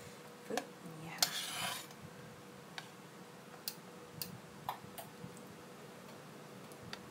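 Stainless steel kitchen tongs clicking and tapping as slices of grilled chicken are picked up and set on a plate. A short scraping rustle about a second in is the loudest sound; light clicks of the tongs follow every half second or so.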